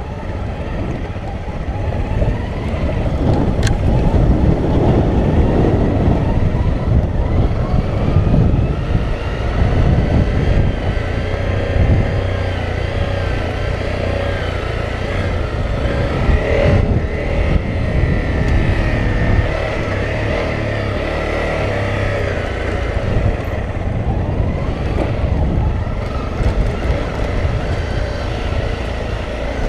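Honda CRF250L dual-sport motorcycle's single-cylinder engine running under way on a rough dirt trail, its note rising and falling with the throttle over heavy low wind rumble. One sharp click about four seconds in.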